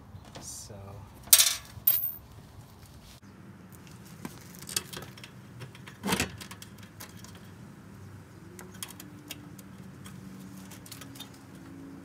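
Small bolts and a block-off panel being handled and fitted. Scattered clicks and light metallic rattles, with sharp knocks about a second and a half in, again half a second later, and once more about six seconds in.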